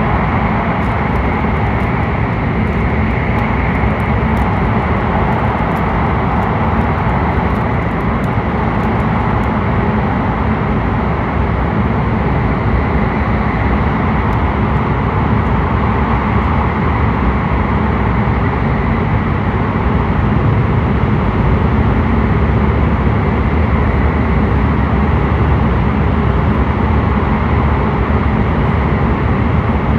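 Hokuriku Shinkansen train running at speed through a tunnel, heard from inside the passenger cabin: a steady, loud running noise, with a few faint ticks in the first ten seconds.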